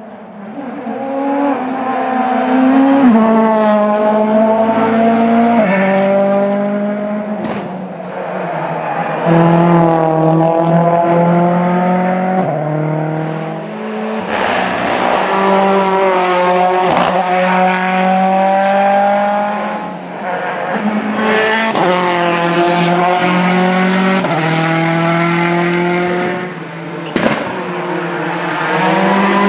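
Rally car engine revving hard through the gears, its pitch climbing again and again and dropping at each gearchange, with a couple of sharp cracks.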